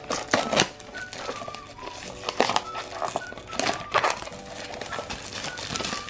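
A small cardboard blind box is handled and turned over in the hands, giving several sharp crinkles, scrapes and taps, over quiet background music.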